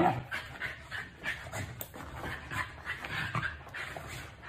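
A husky-type dog play-wrestling with a person's hand. A louder vocal sound ends right at the start, then come many short, irregular soft huffs and grumbles with light scuffling.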